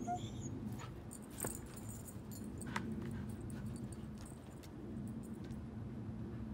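Metal tags on a husky puppy's collar jingling in a few short clinks as she jumps and rears up, over a steady low background hum.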